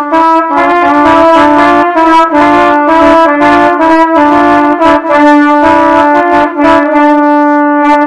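Brass-led music: a melody of held, bright notes over a sustained low note, with a steady beat of sharp hits.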